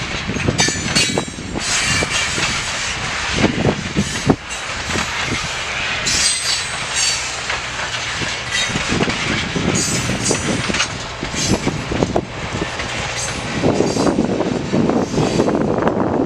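Canadian Pacific train's railcars rolling past, wheels clacking over rail joints in a run of sharp clicks, with some high-pitched wheel squeal.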